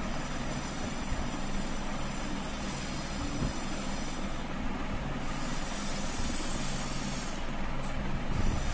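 A steady machine-like hum with hiss, holding several fixed tones without a break.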